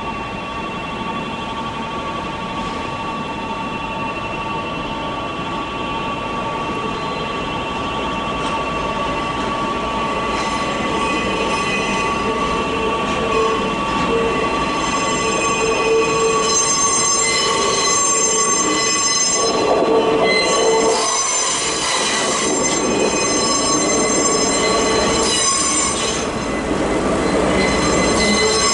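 Slow train carrying Hakone Tozan Railway 3100 series railcars passes, its steel wheels squealing in several high, steady tones over a rolling rumble, growing louder.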